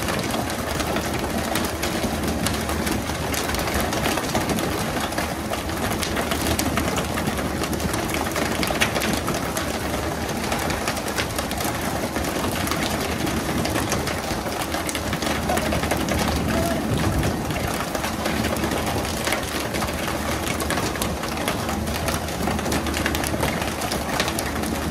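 A fishing boat's engine running steadily under a continuous rush of water spray and splashing at the stern.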